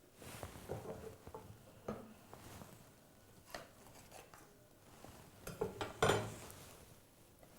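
Light clinks and scrapes of a knife against a baking dish and plate as baked coconut rice is cut and served, with a louder cluster of knocks about six seconds in.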